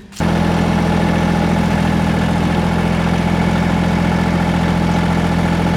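Massey Ferguson GC1725 sub-compact tractor's diesel engine idling at a steady, unchanging speed, cutting in abruptly right at the start.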